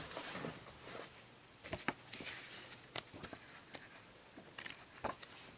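Faint paper handling: rulebook pages being leafed through, with soft rustles and a scattering of small ticks.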